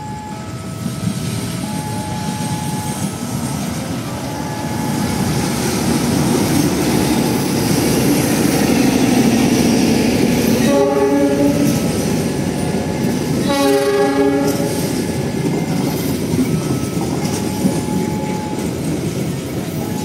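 A passenger train running past on the tracks, its wheel and running noise building over the first several seconds. Two short train-horn blasts sound a couple of seconds apart about halfway through. A level-crossing alarm's repeating steady tones are heard at the start and again near the end.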